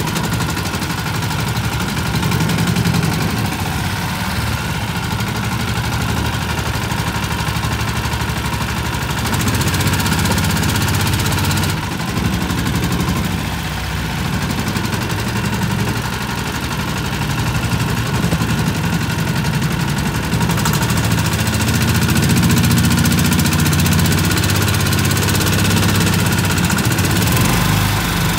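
16 hp Mud-Skipper surface-drive mud motor running steadily as it pushes a jon boat through shallow water, its pitch shifting a little now and then.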